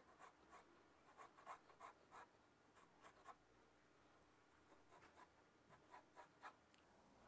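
Faint scratching of a graphite pencil on drawing paper: a series of short strokes, with a pause of about a second midway, as lines are drawn over to press them darker and clearer.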